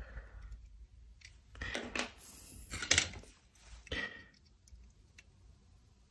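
Several small clicks, taps and light scrapes of hand tools (a spudger and tweezers) against a Nest thermostat's circuit board and the plastic work mat, as the board's wire connectors are being worked loose. The loudest click comes about three seconds in, and the sounds die down to faint ticks after about four seconds.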